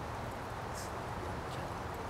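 Steady outdoor background noise, a low rumble with a hiss, and a brief faint high rustle a little under a second in.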